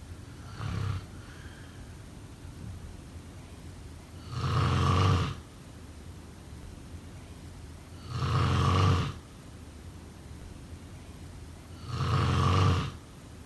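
A person snoring: three loud snores, each about a second long and about four seconds apart, with a fainter one near the start.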